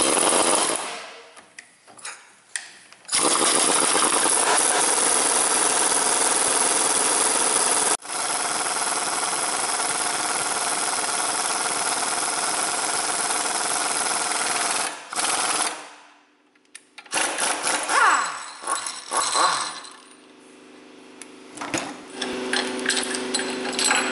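Pneumatic air hammer rattling in long runs as it drives the wheel hub's spindle into a new front wheel bearing. It starts about three seconds in and runs for roughly twelve seconds with a brief stop partway, then goes on in a few short bursts.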